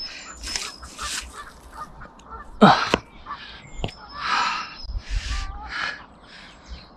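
Hands and sleeves scraping and rustling against rough stone and brick during a climb, in a run of short bursts, with one loud falling whoosh a little under three seconds in. Birds chirp faintly in the background.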